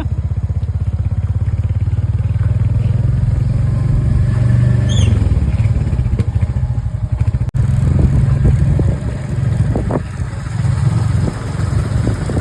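Motorcycle engine running as the bike is ridden, with a regular low firing beat; the pitch drops briefly about five seconds in, and the sound cuts out for a moment about halfway through.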